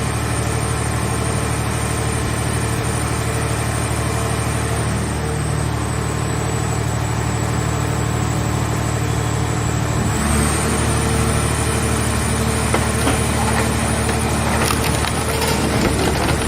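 Scrap-car baler's hydraulic power unit running steadily, a constant hum with a thin high whine. About ten seconds in the whine steps up in pitch and the sound thickens as the press takes load. Near the end there is irregular crackling and creaking of the car body being crushed.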